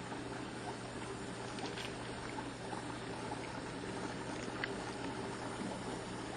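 Bosch Ascenta 46-decibel built-in dishwasher running quietly through its wash cycle: a steady low hum from the machine with a soft, even wash of water moving inside it.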